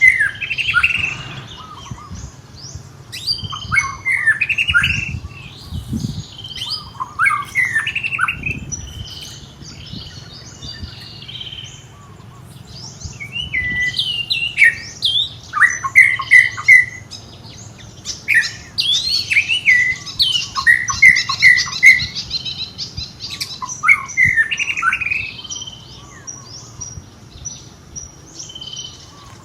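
A baby monkey squealing: repeated short, high-pitched squeaks and chirps, often in quick runs of four or five, busiest in the second half.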